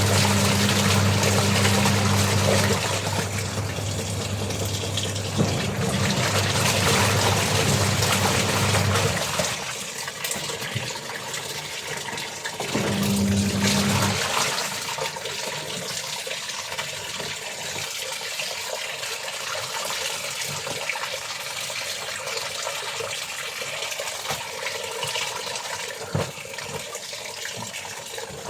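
Water running and splashing, as when laundry is washed by hand, with a low steady hum for the first nine seconds and again briefly around thirteen seconds. The water is quieter after the hum first stops.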